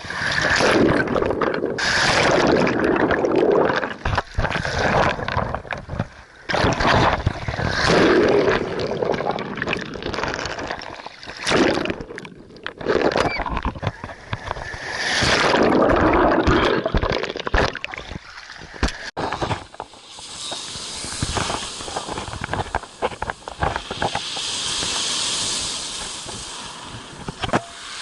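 Black Sea waves surging and sloshing in irregular swells every few seconds, giving way to a steadier hiss in the last several seconds.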